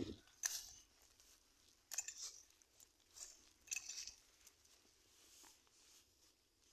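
Faint crunching footsteps on dry grass and leaf litter, a few scattered steps with near quiet between them.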